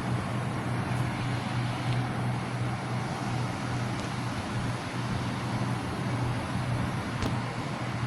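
Robinson R44 helicopter running, a steady drone with a strong low hum that holds even throughout.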